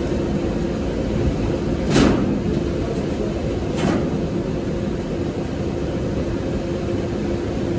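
Steady drone of an airport bag room's conveyor belt machinery, with a low hum running through it. A sharp knock comes about two seconds in, and a fainter one about two seconds later.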